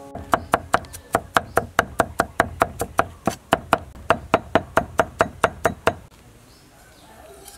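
A knife chopping quickly and evenly on a wooden cutting board, about five strokes a second, stopping about six seconds in.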